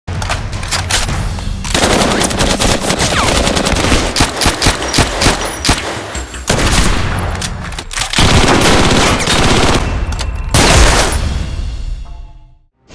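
Battle sound effects of dense, rapid automatic gunfire in several bursts, with the loudest burst about ten and a half seconds in, then fading out.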